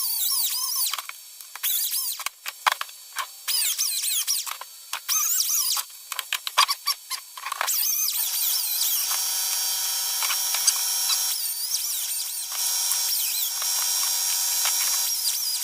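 Small high-speed power tool grinding into a thick box top to make room for a 1/4-inch jack. For about the first half it runs in short spells, its high whine rising and falling under load; from about halfway it runs steadily.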